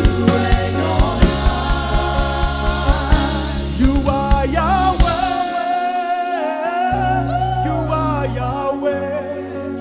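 Live gospel worship music: a singer's voice over keyboard bass and drums. The drums and bass drop out for a couple of seconds about halfway through, then the bass returns.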